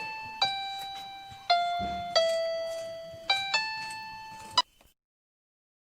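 Background piano music: a slow melody of single notes, each struck and left to fade. It cuts off abruptly nearly five seconds in and is followed by complete silence.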